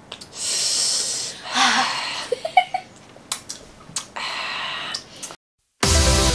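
A person blowing out long, breathy exhales, with short bursts of laughter in between. A brief silence near the end, then music starts.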